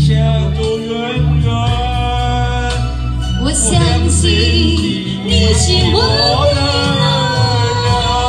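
A man and a woman singing a duet into handheld microphones over recorded backing music with a steady bass line.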